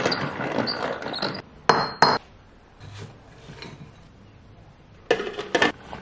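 Small hand-cranked plastic salad spinner with wet berries inside: a whirring rattle for about the first second and a half, then two sharp clicks. After a quiet spell, a quick run of plastic clicks and knocks comes near the end as the crank handle is worked.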